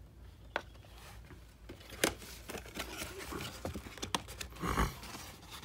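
Cardboard pet carry box being handled and opened by hand: a low crinkling rustle with a few sharp clicks and a louder bump of handling near the end.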